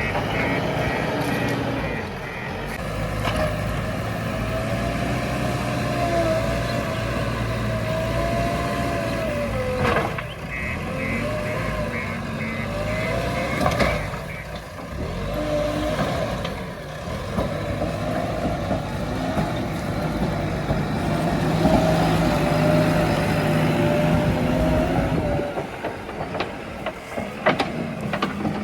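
Heavy diesel machine engine running steadily, with a rapid electronic beeping at the start and again about ten seconds in.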